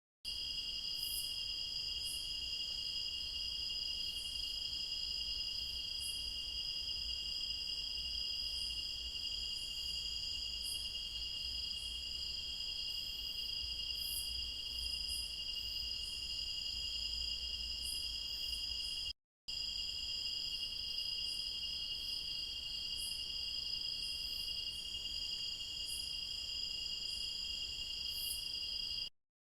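Forest insect chorus: a steady, shrill two-tone trill from crickets, with scattered short high chirps over it and a low rumble underneath. It cuts out for a moment about two-thirds of the way through, then carries on unchanged.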